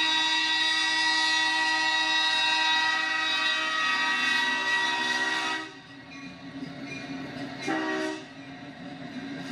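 Union Pacific SD70ACe locomotive's first-generation Nathan Airchime K5LLA five-chime horn sounding a long sustained chord that cuts off about five and a half seconds in. Then comes the rumble of the passing locomotives, with one short horn blast about two seconds later.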